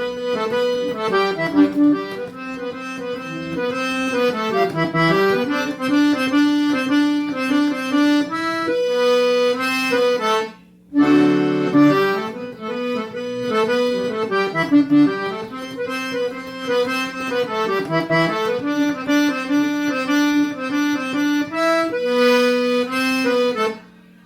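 Accordion playing an instrumental melody of quick, changing notes over a steady held bass note, breaking off for a brief pause about halfway through.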